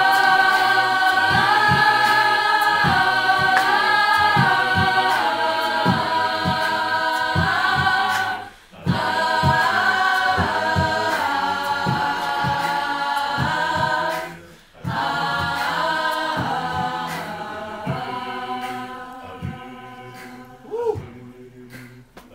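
Mixed-voice a cappella group singing sustained chords in harmony over a steady low beat. The singing stops briefly twice, then turns quieter near the end.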